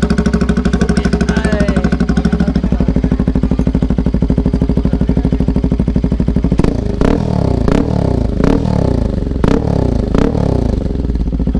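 Bajaj Pulsar RS200's single-cylinder engine idling steadily through an aftermarket Akrapovic-branded slip-on silencer with no dB killer fitted. About six and a half seconds in, a run of sharp throttle blips sends the revs up and lets them fall back, again and again.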